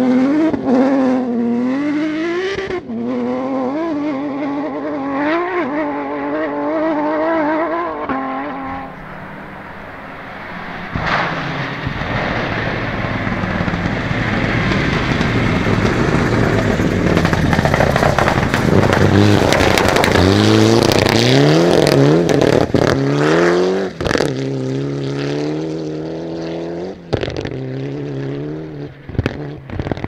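Rally cars driven hard on a loose-surface stage. First a Porsche 911 GT3's flat-six revs up and down through gear changes. Then a Mitsubishi Lancer Evolution's turbocharged four-cylinder runs with heavy tyre and gravel noise and rising and falling revs, with several sharp cracks near the end.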